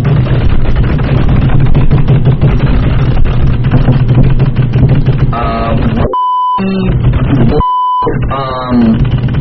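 Fast, dense clicking of computer keyboard typing over a steady low hum, then two short high beeps about a second and a half apart, with the background cutting out under each.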